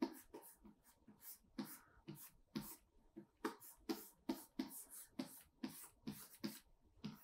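Quick, light strokes of a stylus on a graphics tablet while sketching, about three short scratchy taps a second in an even rhythm.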